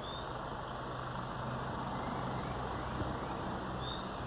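A steady, low engine hum, with a faint click about three seconds in.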